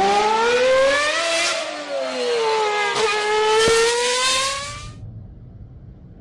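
Car engine revving: the pitch climbs, eases back down, then climbs again before cutting off abruptly about five seconds in.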